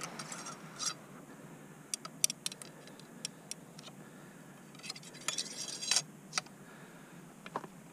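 Small metallic clicks, taps and scraping as a muzzleloader rifle and its ramrod are handled, with scattered clicks about two seconds in and a denser run of rattling and scraping near the sixth second.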